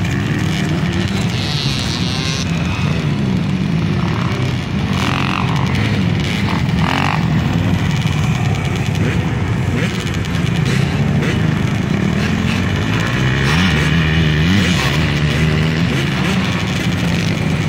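Several small two-stroke youth dirt bike engines running together, idling with the pitch rising and falling as throttles are blipped, with more bikes buzzing out on the track.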